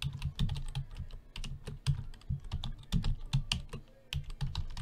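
Typing on a computer keyboard: a quick, uneven run of keystrokes as a short line of text is typed out.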